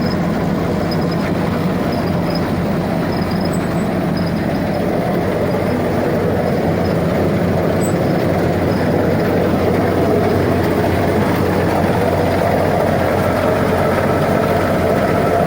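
New Holland 8070 combine harvester running steadily, its first run after being repaired for the wheat harvest; the drone grows a little louder about halfway through.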